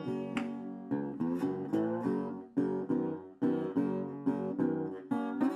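Background music: an acoustic guitar strumming and picking chords in a steady rhythm.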